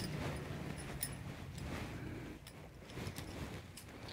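Faint handling sounds of cloth being moved aside: soft rustling with a few light clicks.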